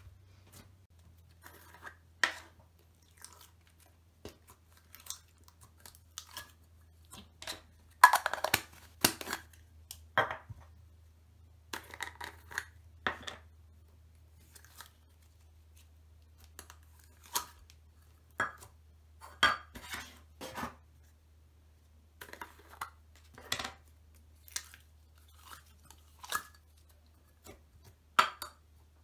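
Hands squeezing, stretching and pressing thick slime, making irregular sticky clicks, pops and crackles, with a loud cluster about eight seconds in. A faint steady low hum sits underneath.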